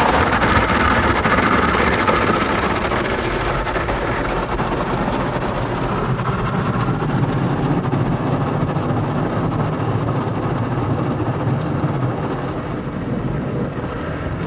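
Side brush of a WashTec SoftLine 2 tunnel car wash spinning and scrubbing along the car's side and window with water spray, heard from inside the cabin. It is a loud, steady noise that is brightest for the first few seconds, then eases into a steadier sound with a low drone underneath.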